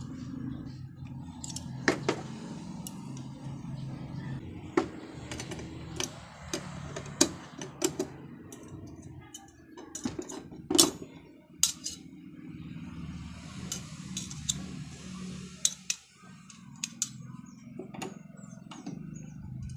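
Irregular metal clicks and clinks as a steel welding ground clamp and pliers are handled, opened and set down on a wooden board, the loudest tap about halfway through. A low steady hum runs underneath.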